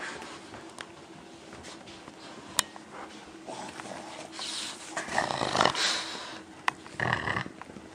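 Two Boston terriers playing over a small chew toy: noisy bursts of breathing and scuffling, loudest in the second half, with a few sharp clicks.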